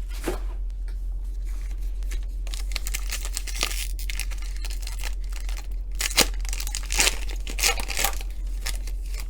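A trading-card pack's wrapper being torn open and crinkled, with cards rustling in the hands in a string of short ripping and shuffling strokes. A steady low hum runs underneath.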